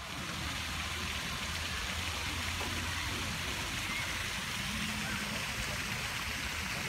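Tiered stone park fountain splashing steadily into its basin, a constant even hiss of falling water.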